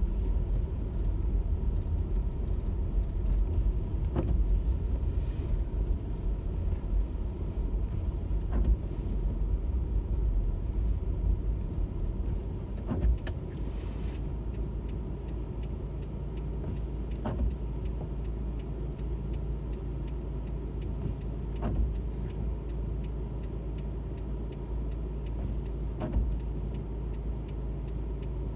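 Car driving on a snowy road: a steady low rumble of engine and tyres, with scattered faint clicks. The rumble is rougher and louder at first and settles lower and steadier about halfway through.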